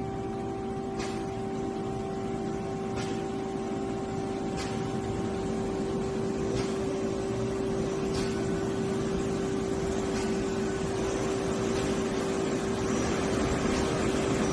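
Nakamura-Tome SC250 CNC lathe running on a test run: a steady machine hum with a constant tone, and a hiss that slowly grows louder. Faint ticks come about every one and a half to two seconds.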